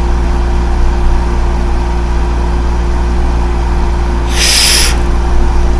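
Steady low hum of an idling car engine, with a short breathy hiss, like a breath, about four and a half seconds in.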